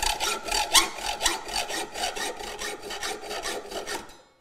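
Hacksaw cutting 1/8-inch by 3/4-inch flat steel bar clamped in a vise, with quick, even back-and-forth strokes. The strokes stop about four seconds in as the cut closes out.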